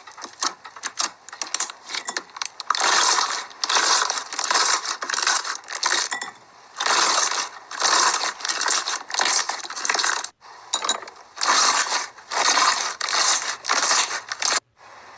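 Slime being squeezed and poked: a run of quick sharp clicks and pops, then three long stretches of dense crackling, the last two breaking off abruptly.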